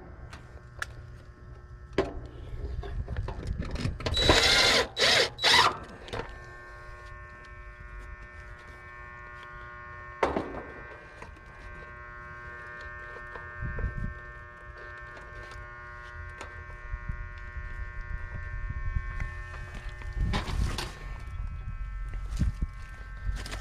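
Work noises on an air-conditioner condenser during a capacitor replacement: a few loud whirring and rattling bursts about four to six seconds in, scattered clicks and knocks, and a steady electrical hum underneath for much of the time.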